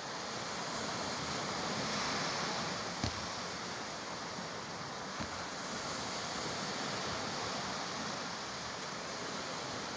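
Steady wash of distant sea surf, with two faint ticks about three and five seconds in.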